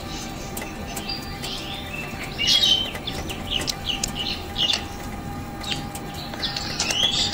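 Birds chirping in quick, short calls, over a faint steady hum.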